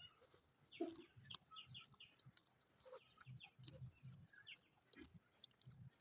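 Faint close-up chewing of samosa, a soft rhythmic munching, with chickens clucking and small birds chirping in the background.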